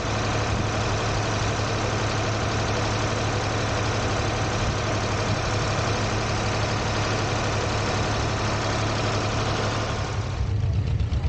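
Sawmill running: a steady, dense machinery noise over a low engine drone, ending fairly abruptly near the end.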